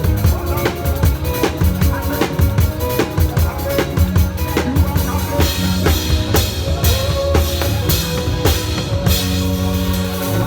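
Church praise-band music: a drum kit plays a fast, busy groove of bass drum and snare over sustained pitched instruments, with brighter cymbal strokes coming in about halfway through.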